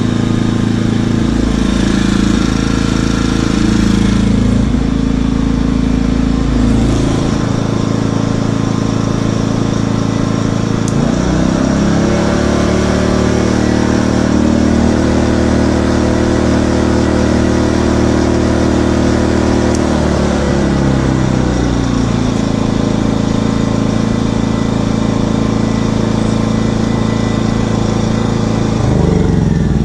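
WEN 56200i inverter generator's 79.7 cc four-stroke OHV engine running steadily. About eleven seconds in its engine speed rises, holds for roughly ten seconds, then settles back to a lower speed.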